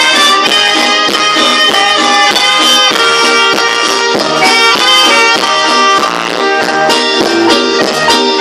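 A dance band's music playing loud, with several instruments holding notes over a steady beat.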